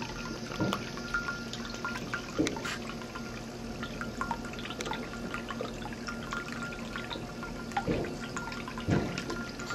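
Ceramic tabletop cat fountain running: a thin stream of water trickling from the spout into the filled bowl, with irregular plinks and plops of falling water, a few louder plops, two of them near the end.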